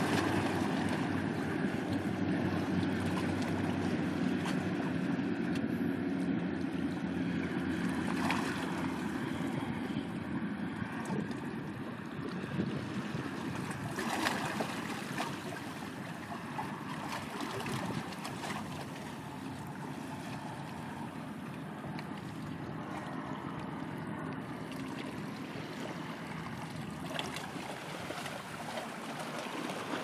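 Steady wind and sea noise, with wind buffeting the microphone. A low rumble is strongest over the first dozen seconds and then fades. A few brief sharp sounds stand out.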